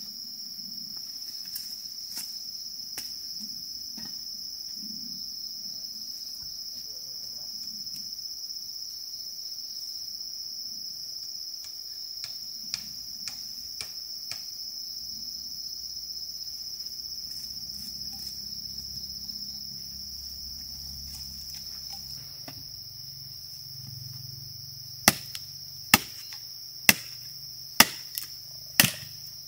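Steady high-pitched insect drone with faint scattered knocks; near the end, five sharp blows about a second apart, as of chopping or hammering.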